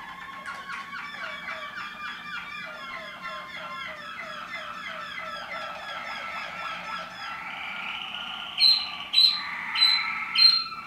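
Waterslager canaries, the Belgian song-canary breed, singing: a fast run of repeated chirping syllables over a held whistle, then four loud sharp notes about half a second apart near the end.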